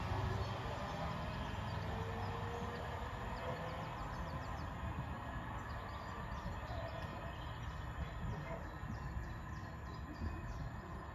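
Class 313 electric multiple unit pulling away and fading into the distance, its running noise slowly dying down, with a faint rising whine in the first few seconds. Birds chirp faintly and repeatedly in the second half.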